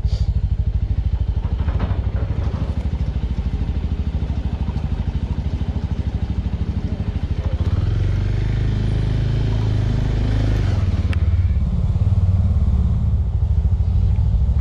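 Small Suzuki motorcycle engine running at low speed with an even, rapid firing beat as it rolls slowly onto a ferry's car deck. It grows a little louder and fuller about eight seconds in.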